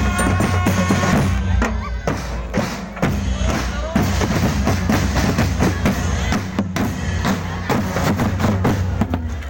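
Loud music with a fast drum beat and heavy bass, played through a sound system.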